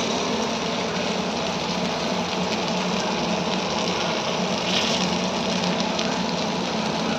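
Fish sizzling as it fries in hot oil: a steady hiss dotted with many small crackles.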